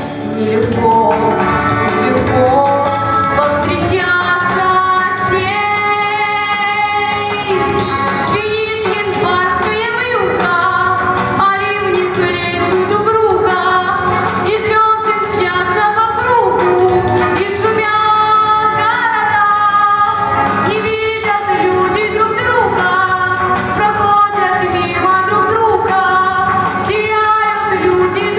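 Pop song with a female voice singing over a backing track.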